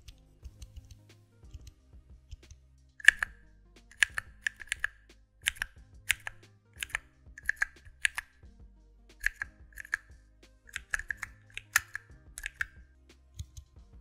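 CHERRY MX Brown tactile key switches being pressed: faint clicks from a single loose switch squeezed between the fingertips, then from about three seconds in, irregular sharp clacks of keys typed on a small keypad fitted with MX Brown switches. The switches have a tactile bump but no click mechanism, so what is heard is the keys bottoming out and springing back.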